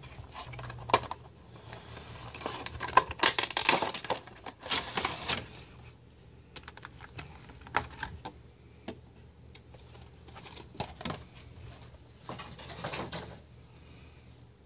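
Clear plastic packaging insert and cardboard window box of a Funko Pop vinyl figure crinkling and clicking in the hands as the figure is pulled out. The crackling is densest about two to five seconds in, with scattered clicks after it and a shorter burst of crinkling near the end.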